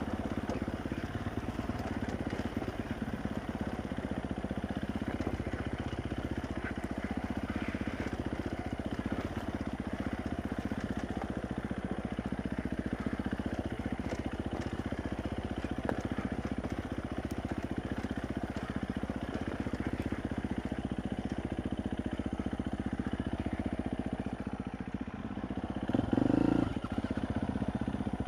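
Dirt bike engine running steadily as the bike is ridden along a rough forest trail, revving up briefly near the end.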